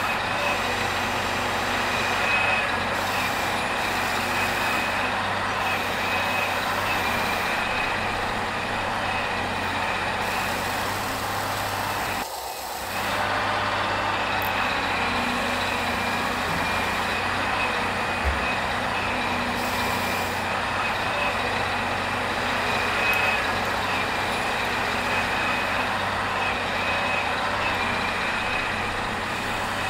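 Steady mechanical running drone with a constant high whine over it, like a truck engine, broken off briefly about twelve seconds in.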